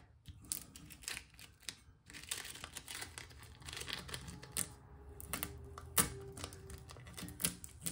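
Transfer tape being peeled back off adhesive vinyl letters on a dog bowl while fingers press the letters down: faint crinkling and rustling of the tape with scattered small clicks and taps, and one sharper tap about six seconds in.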